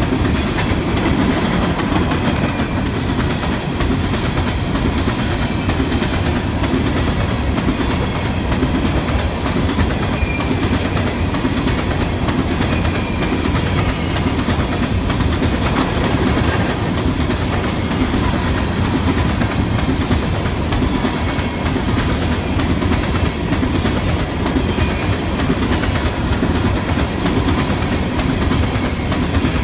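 Coal train of steel hopper cars rolling past on the near track: the wheels run on the rails with a steady, unbroken rumble and rattle.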